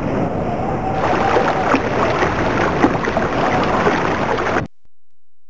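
Location sound of a crowded wooden boat at a river's edge: water sloshing and splashing, with scattered knocks and faint indistinct voices. It cuts off abruptly a little over four and a half seconds in.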